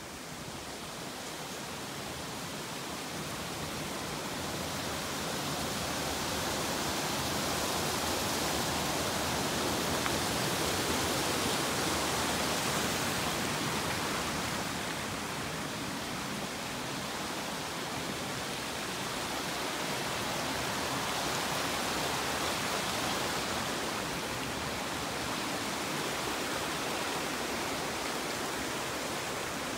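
Rushing water of Little Amicalola Creek, a steady hiss that swells louder toward the middle and eases off a little near the end.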